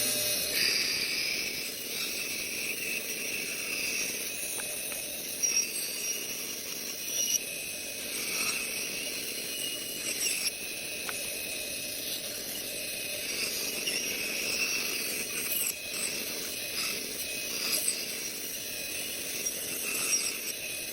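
Rikon bandsaw running and cutting through six-quarter hard maple: a steady hissing whine with small swells and a few brief peaks as the blade works through the wood.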